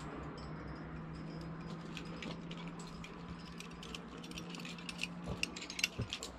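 Climbing hardware clinking: a run of quick metallic clicks and rattles that grows denser and louder toward the end.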